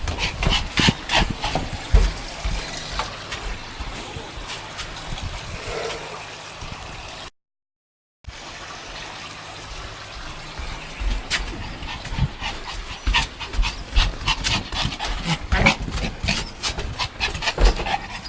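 Pomeranian making small whimpers and yips among many short clicks and rustles of handling and play. The sound cuts out completely for about a second partway through.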